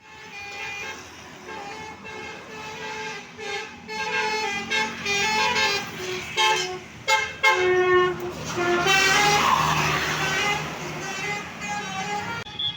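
Bus 'telolet basuri' musical air horn playing a tune, its notes stepping quickly up and down in pitch.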